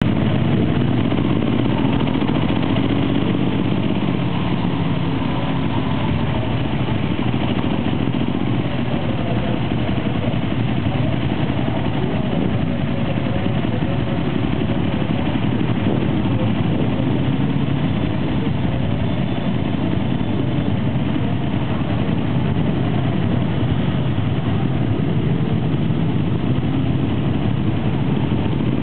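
Several Ducati motorcycles ridden slowly in a group, their engines running steadily at low revs, heard from among the pack.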